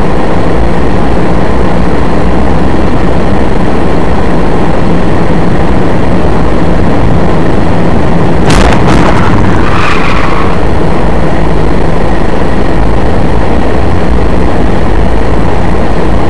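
Loud, unvarying road and engine noise of a moving car, picked up by a dashcam inside the cabin. About halfway through there is a sharp knock, followed by a brief higher-pitched noise lasting a second or two.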